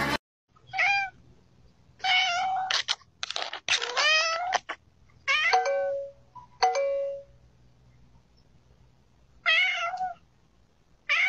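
A domestic cat meowing over and over, about eight loud calls, some short and some drawn out with rising and falling pitch, heard through a doorbell camera's microphone.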